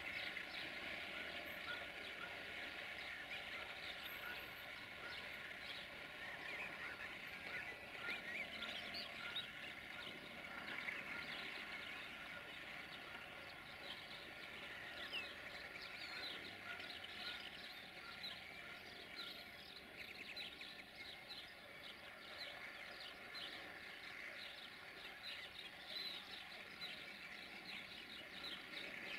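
Birds chirping and singing continuously, with a faint steady drone underneath.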